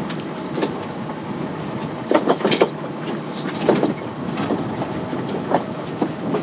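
Mainsail being hoisted: sailcloth flapping and rattling with irregular knocks and clatters from the sail and its hardware, over a steady rush of wind.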